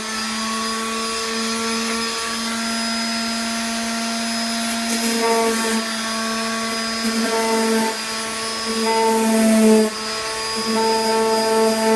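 An electric handheld power tool runs steadily, its motor giving a pitched hum that wavers slightly as the load on it changes. The tool eases off briefly about ten seconds in, then picks up again.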